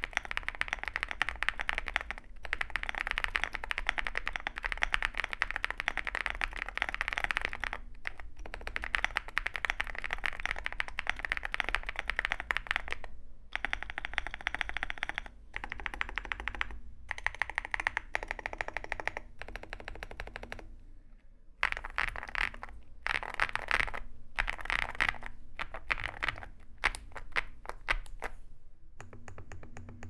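Fast typing on a foam-filled Zoom65 mechanical keyboard with lubed Epsilon switches and MT3 keycaps: a dense, steady run of key clacks broken by brief pauses every few seconds.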